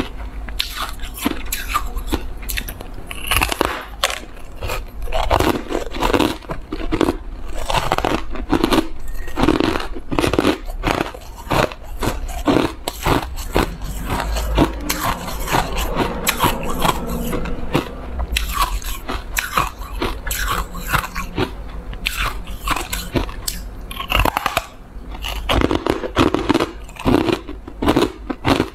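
A person biting and chewing chunks of packed shaved ice: a dense, irregular run of sharp crunches, one after another.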